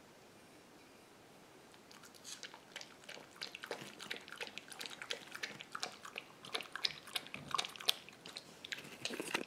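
Beagle puppy lapping water from a stainless steel bowl, a fast, irregular run of wet tongue clicks starting about two seconds in.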